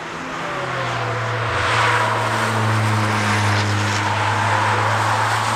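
Several cars driving on the Nürburgring Nordschleife circuit, their engines running hard and getting louder as they approach over the first two seconds, then holding steady.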